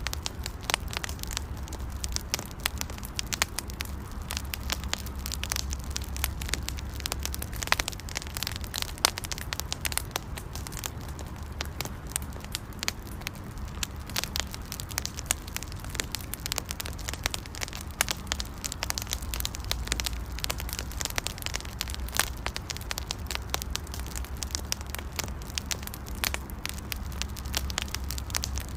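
Wood campfire burning, with dense irregular crackling and frequent sharp pops over a low steady rumble.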